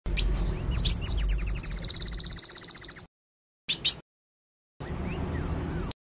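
Caged wambi mini, a small sunbird, singing: a rapid high trill of sharp chirps lasting about three seconds, then after a break a brief note and a run of short, high whistled phrases.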